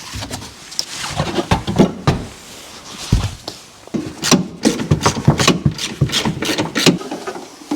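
Irregular knocks and clicks of hand tools and metal parts being handled, with a quicker run of about three knocks a second in the second half.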